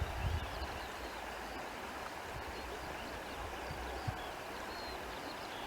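Countryside ambience: a steady rush of wind and rustling with low buffeting of wind on the microphone, and faint, brief bird chirps throughout. A single soft thump about four seconds in.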